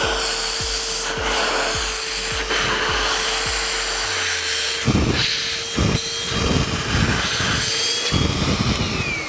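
Sinbo handheld vacuum cleaner running with a steady motor whine, the head knocking and bumping as it is worked. Near the end it is switched off and the whine falls away as the motor winds down.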